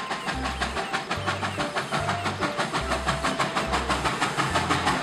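Steam locomotive chuffing at a steady pace: a fast, even beat of exhaust puffs over a hiss.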